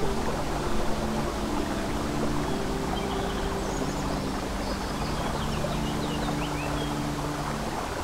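Babbling brook running steadily under soft, held music notes, with a few faint bird chirps in the middle.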